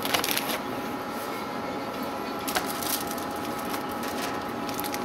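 Short clusters of crackling, rustling clicks, three times, over a steady background hum that carries two faint held tones.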